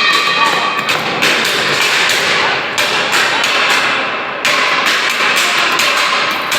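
Metalworking noise from welding work: a dense, steady noise with repeated knocks and thuds over it.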